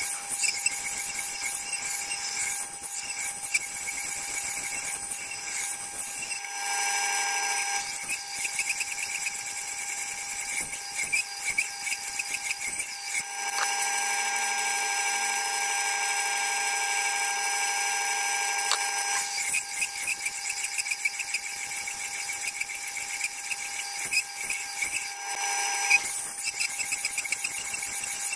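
Powered sharpening wheel running with a steady whine while the steel edge of a chipped Baccarat Damashiro knife is ground against its rim, a scratchy grinding noise as the chipped edge is ground back. The grinding drops out twice for a few seconds, leaving only the machine's even whine.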